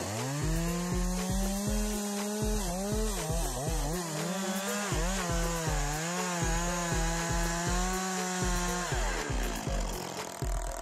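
Two-stroke chainsaw revving up to full throttle and cutting wood, its pitch dipping and wavering under load for a few seconds before steadying, then dropping back toward idle near the end. A steady low beat of background music runs underneath.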